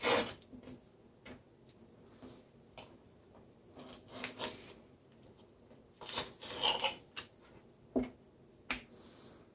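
Knife cutting raw chicken breast into strips on a cutting board: irregular taps and knocks of the blade on the board, the sharpest right at the start, with smaller clusters about 4, 6 and 8 seconds in.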